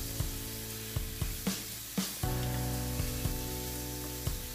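Sliced pork and onion sizzling in a hot nonstick frying pan. A wooden spatula scrapes and taps against the pan several times as it stirs the meat.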